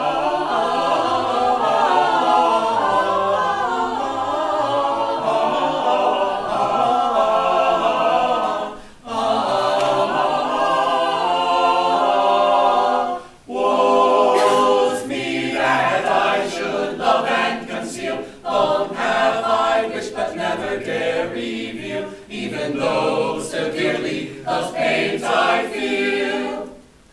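Small mixed a cappella choir of men's and women's voices singing in chords. Long held phrases break for a breath about nine and thirteen seconds in, and the singing then goes on in shorter, choppier phrases.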